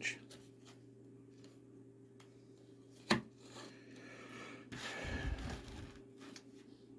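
Armor pieces being handled: one sharp click about three seconds in, then a couple of seconds of rustling and rubbing with a low thump, over a steady low hum.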